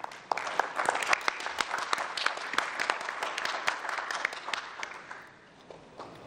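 Audience applauding, a dense run of hand claps that starts just after the pitch's closing thanks and dies away about five seconds in.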